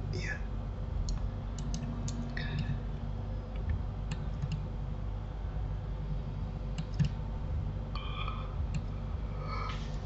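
Scattered clicks of a computer mouse and keyboard, a dozen or so at irregular intervals, over a low steady hum.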